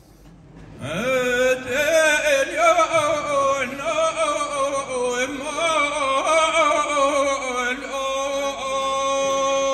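A single singer's voice, entering about a second in with a rising slide, then an ornamented line with the pitch bending and wavering, ending on one long held note.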